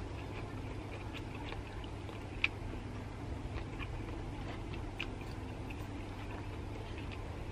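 A person eating rice by hand: soft chewing and small mouth clicks, with one sharper click about two and a half seconds in, over a steady low hum.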